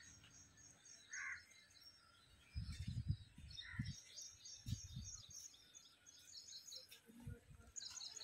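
Faint outdoor ambience with small birds chirping: rapid, repeated high notes that come and go throughout. Several short low rumbles on the microphone stand out, the loudest about three seconds in.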